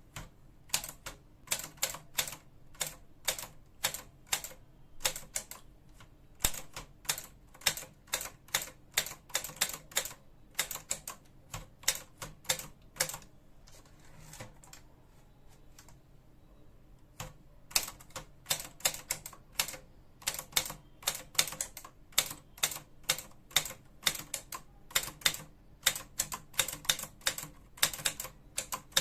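Remington 20 typewriter being typed on: sharp keystrokes clacking in uneven runs of several a second. About halfway through there is a break of a few seconds with only a faint rustle, then the typing picks up again.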